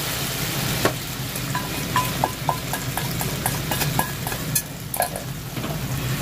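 Sweet-spicy soy and gochujang sauce sizzling and bubbling in a frying pan around pan-fried chicken thighs, just poured in and starting to reduce to a glaze. Short clicks and taps of a utensil against the pan run through it from about a second in as the chicken is stirred in the sauce.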